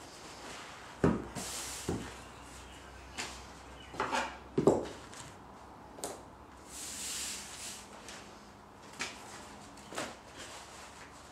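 A roll of black upholstery vinyl being unrolled and handled on a workbench: a few thumps and knocks as the roll is set down and pushed along, the loudest about four and a half seconds in. Twice the sheet makes a swish as it slides over the table top.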